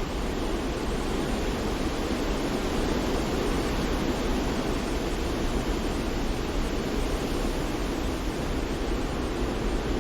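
Steady, unbroken rushing noise of a sleep-noise track, heavier in the low and lower-middle range than in the highs, with no change in level.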